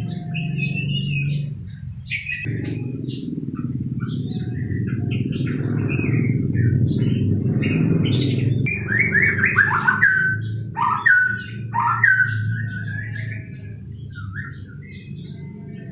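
White-rumped shama singing: a run of short, varied whistled phrases, with the loudest, downward-sliding notes about two thirds of the way through. A steady low hum lies underneath.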